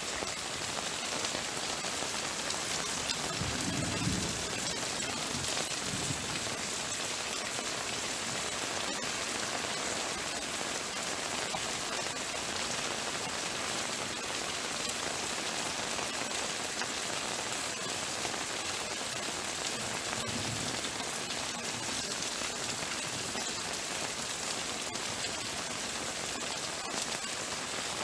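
Heavy rain falling steadily, an even hiss of drops hitting surfaces, with a brief low rumble about four seconds in.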